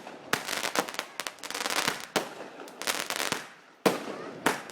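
Fireworks going off in quick succession: clusters of crackling bangs, with a single sharp, loud bang near the end.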